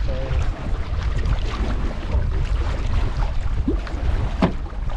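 Wind buffeting the microphone aboard a sailboat, a constant low rumble, with water noise around the hull and a couple of short sharp knocks near the end.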